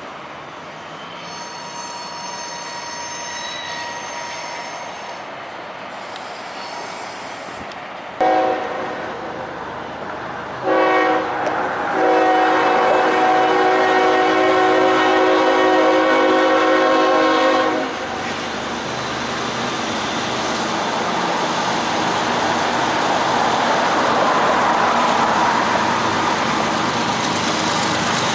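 Freight train cars rolling by with a steady rumble. Then a diesel locomotive's multi-chime air horn sounds several blasts: a blast of about two seconds, a short one, and a long one of about six seconds. After the horn stops, the rumble of the approaching train grows louder.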